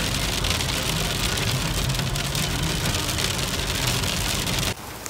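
Rain drumming steadily on a car's roof and windshield, heard from inside the cabin while driving on a wet road, with the car's low engine hum underneath. It cuts off suddenly near the end.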